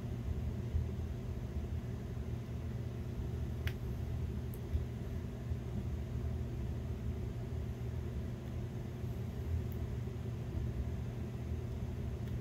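Steady low hum in the background, with a few faint clicks of small snips cutting the stitching threads of a cotton buffing wheel; the clearest click comes about four seconds in.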